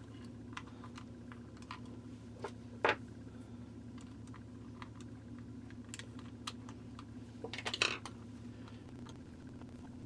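Small sharp clicks and taps of a screwdriver and screws as the plastic cover of a plug-in timer is screwed back on, with a louder click about three seconds in and a quick cluster of clicks near the end, over a steady low hum.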